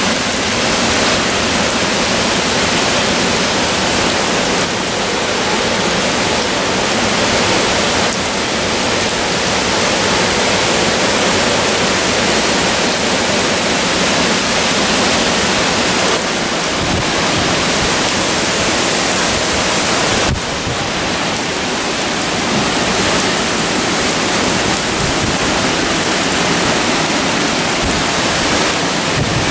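Tropical-storm wind and rain: a loud, steady rushing hiss that hardly changes, stepping slightly in level a few times.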